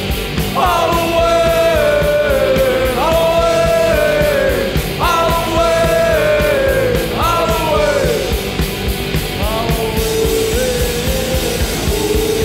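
Rock music with singing, its phrases sliding down in pitch about every two seconds.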